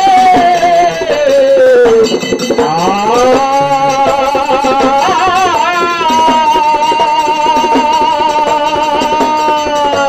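Male voice singing a Kannada dollina pada folk song in long drawn-out notes: the first slides down in pitch, then the voice climbs and holds a high note steady to the end, wavering briefly near the middle. A barrel drum and small hand cymbals keep a fast beat underneath.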